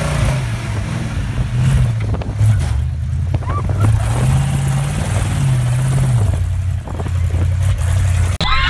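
Sand buggy engine running hard over the dunes, its note rising and falling again and again as the throttle is worked, over a rushing hiss.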